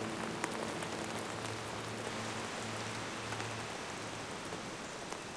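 Steady tropical rain falling on rainforest foliage and thatched roofs, with scattered close drops ticking.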